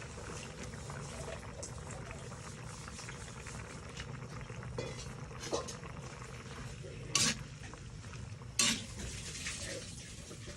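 Pot of beef and green pea stew bubbling steadily, with a few sharp clinks of a utensil against the pot, the two loudest in the second half.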